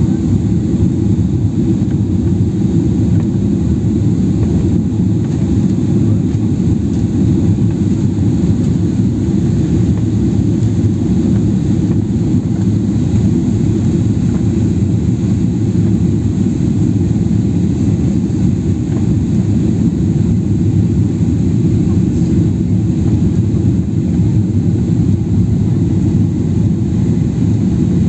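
Steady low rumble of engine and airflow noise inside a Boeing 737 airliner's cabin on final approach to landing.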